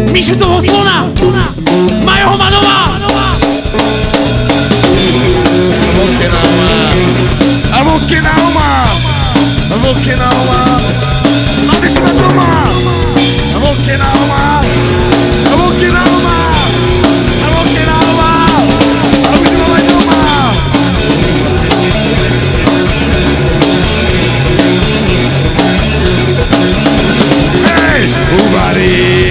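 Band playing live and loud, a drum kit keeping a steady beat under the other instruments.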